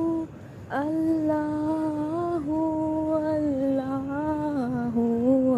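A single voice humming a slow devotional zikr melody in long held notes that step gradually lower in pitch, with a short break about half a second in.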